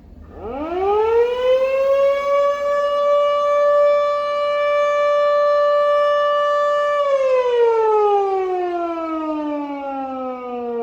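Fire siren sounding for a test. It winds up quickly about half a second in to a steady, loud tone, holds it for several seconds, then starts winding down in a long falling glide about seven seconds in.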